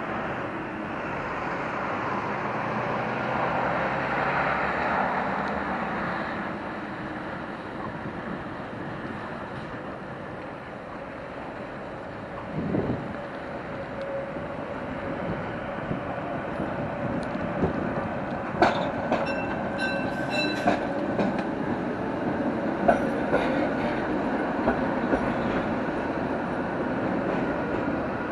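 Gothenburg tram running over the rails towards and past the microphone, a steady rumble with a motor whine. In the second half come a run of sharp clicks as the wheels cross track joints and points, with brief ringing tones among them.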